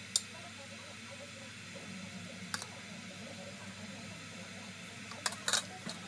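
A metal spoon scraping food from a plastic chopper bowl into a glass jar, giving a few sharp clicks and taps against the bowl and jar. The loudest taps come in a quick cluster near the end, over a steady faint hiss.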